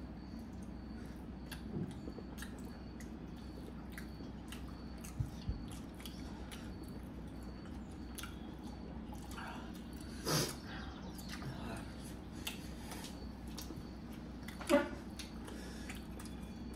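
People chewing mouthfuls of momos, with soft clicks of eating over a steady low hum. There are a few brief louder noises: two low knocks about five seconds in, a louder one near ten seconds and another near fifteen.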